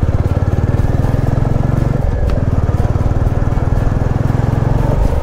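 Royal Enfield motorcycle engine running while riding, a steady fast train of firing pulses close to the microphone, with a brief dip about two seconds in.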